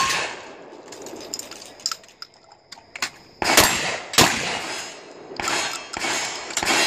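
Shotgun shots fired in quick succession on a speed-shotgun stage, a pair about three and a half and four seconds in and more near the end, with steel targets clanging. Quieter clicks and clanks come between the shots.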